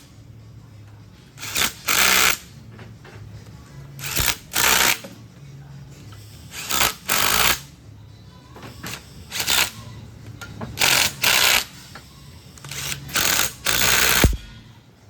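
Power drill driving down the bolts on a hydroseeder gear pump's end plate in a crisscross pattern, running in short bursts, mostly in pairs, about every two seconds.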